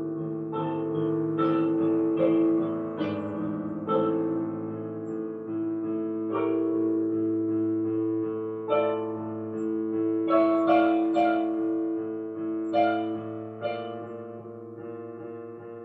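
Digital upright piano played slowly, with held chords and single notes struck one after another and left to ring.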